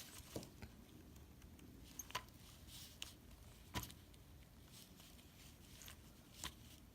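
Faint, scattered clicks and light rattles of the plastic parts of a Turtle Beach Stealth 520 headset being handled and worked apart, about six separate ticks over several seconds, the clearest a little under four seconds in.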